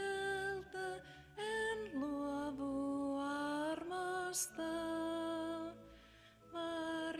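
A slow hymn sung in long, held phrases, with two short pauses between phrases.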